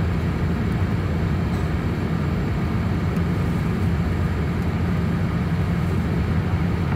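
Steady cabin noise of a Boeing 787-8 in flight, heard from a window seat over the wing: a constant low rumble of its Rolls-Royce Trent 1000 engines and the airflow.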